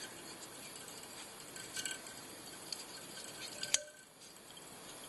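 A few faint clicks, then one sharp snap a little after halfway as the fly-tying thread breaks under tension, over a steady low hiss.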